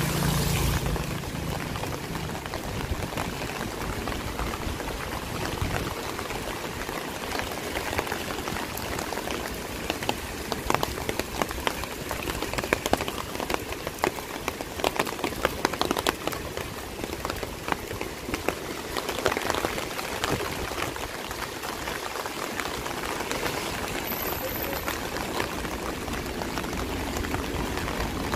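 Steady rain falling, with many close raindrops ticking sharply, thickest in the middle. A brief low rumble at the very start.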